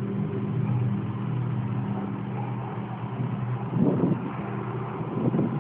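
A steady low droning hum made of several even tones, the kind of noise reported as unexplained sounds from the sky. It fades about halfway through, and two short irregular rumbling bursts follow near the end.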